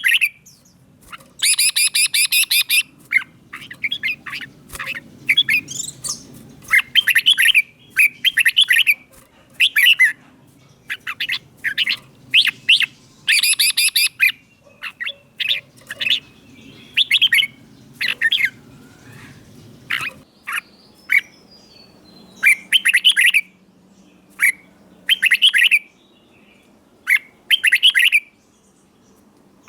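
Red-whiskered bulbul singing: short, loud, whistled phrases of sliding notes, repeated every second or two. A faint low hum lies underneath until about two-thirds of the way through.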